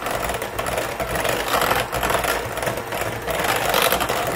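Electric hand mixer running steadily, its beaters whirring through a thick pumpkin mousse mixture.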